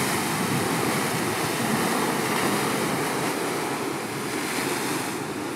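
Ocean waves breaking and foaming against a rock ledge: a steady rush of surf that eases a little near the end.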